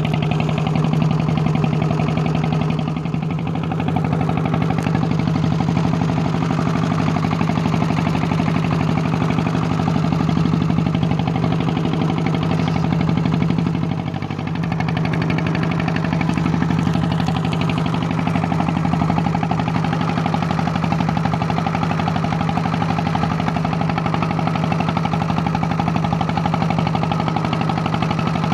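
Small engine running steadily, with rapid even firing pulses and a steady drone that dips briefly twice.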